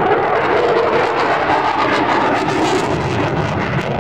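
Jet noise from an F-16D Fighting Falcon's General Electric F110 turbofan as the fighter flies a display manoeuvre overhead: a loud, steady rush with a crackling edge that comes in about a second in.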